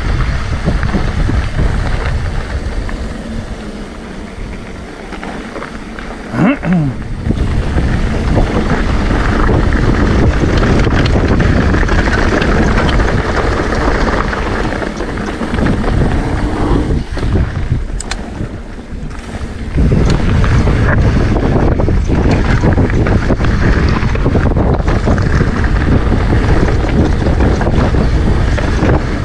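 Wind buffeting the microphone of a mountain bike rider at speed, over the rumble of tyres on a gravel and dirt trail, with a few knocks and rattles from the bike. The noise eases twice when the bike slows and is loudest over the last third; a brief squeak rises about six seconds in.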